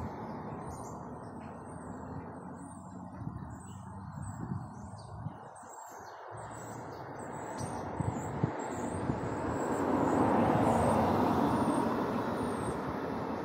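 Small birds chirping, many short high-pitched calls through most of the stretch, over a steady low rushing noise that grows louder about ten seconds in.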